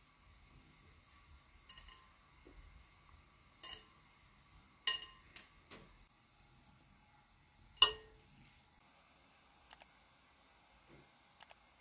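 A few light clinks and taps of metal trays and a glass bowl, the loudest a sharp ringing clink about eight seconds in.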